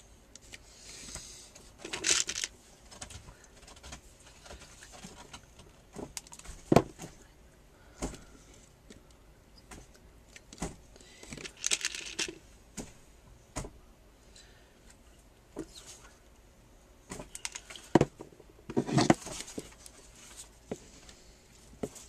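Hand-crafting handling noises: scattered light clicks and taps as small pearls are pressed and glued onto a wooden birdhouse, with three short rustles about 2, 12 and 19 seconds in.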